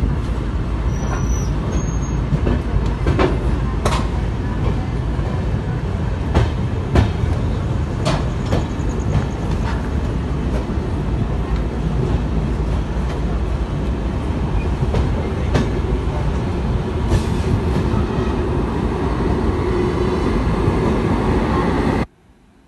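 Passenger train running through a station, heard from on board: a steady rumble of wheels on rails with irregular clicks and knocks from rail joints and points. It cuts off suddenly near the end.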